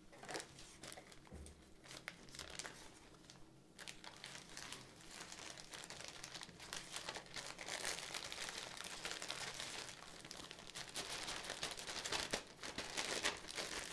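Clear plastic packaging bag crinkling and rustling as hands handle it. A few crackles at first, then continuous crinkling from about four seconds in, growing louder near the end.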